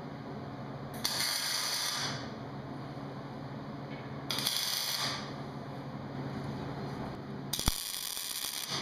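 Wire-feed welder tacking steel gate bars: three short welds of about a second each, with a sharp click as the third one strikes.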